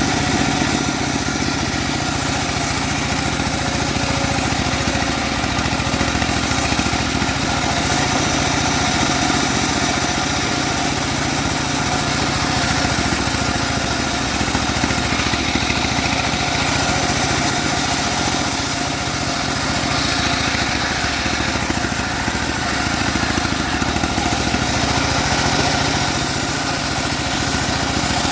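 Homemade engine-driven bandsaw mill running steadily while sawing a log, its engine and blade making a constant mechanical drone with a high hiss over it.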